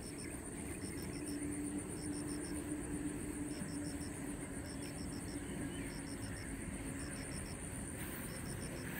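Outdoor ambience: a steady high insect buzz with short groups of three or four high chirps repeating about once a second, over a low rumble. A faint low hum runs through the first few seconds.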